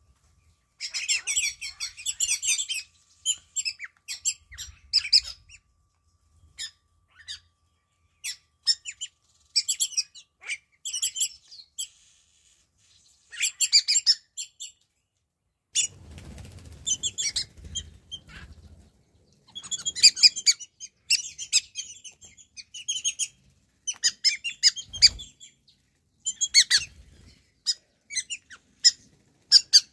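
Wattled starlings calling in a flock: short bursts of high, squeaky chattering calls broken by gaps. About halfway through there is a few seconds of low rustling, and near the end a single dull thump.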